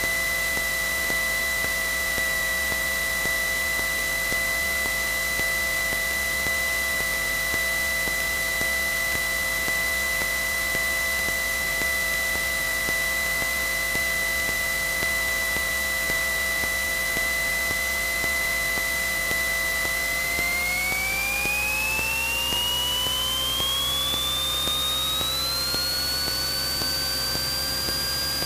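Cessna 172N's four-cylinder Lycoming engine and propeller: a steady whine over a constant hiss. About two-thirds of the way through, the whine rises in pitch over several seconds and then holds higher, as the engine speeds up to full power for the takeoff roll.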